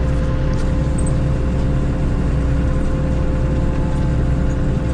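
John Deere 8820 combine running steadily, its engine and threshing machinery turning over while it clears out the last of the corn: a constant low drone with a steady hum over it.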